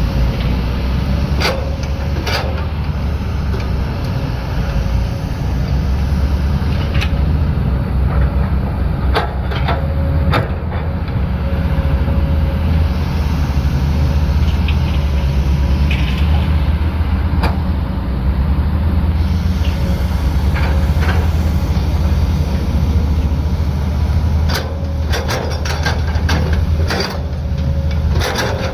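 Heavy construction machine's diesel engine running steadily, with scattered sharp clanks and knocks.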